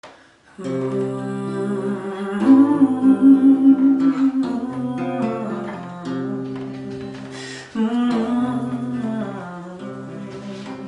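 Background music with acoustic guitar and held, hummed-sounding melody notes, starting about half a second in.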